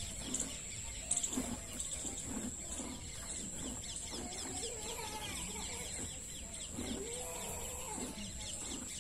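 Hens clucking now and then, over the soft squirting of milk into a steel pail as a cow is milked by hand.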